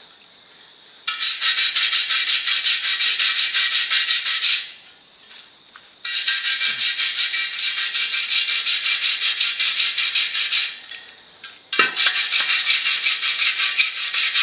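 Wire brush scrubbing loose rust off the inside of a rusty motorcycle wheel rim, in three long bouts of fast back-and-forth rasping strokes, each broken off by a short pause.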